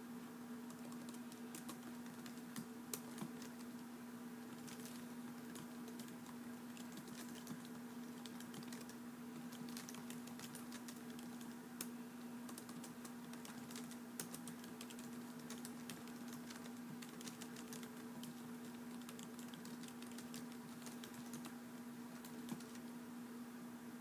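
Typing on a keyboard: quiet, irregular key clicks throughout, over a steady low hum.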